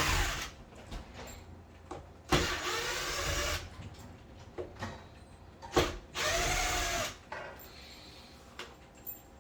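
Power drill-driver backing screws out of a door hinge in short runs, its motor whine rising and falling in pitch each time. One run ends about half a second in, and two more of about a second each follow, with light clicks between.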